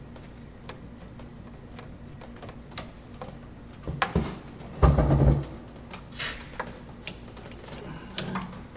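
Hand work on the Jeep's steel transmission cooler line fittings: scattered metal clicks and clinks as a fitting is worked loose and the line pulled free, with a louder clatter about four to five seconds in.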